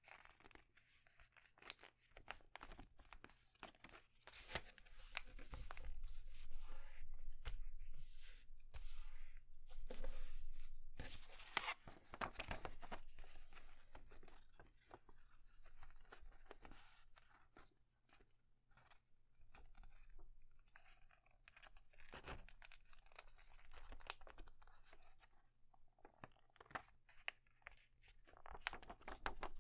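A sheet of paper rustling and crackling as it is folded by hand, with fingers pressing and running along the creases. The crackles come in irregular bunches, busiest through the first half and quieter later with a few sharp snaps.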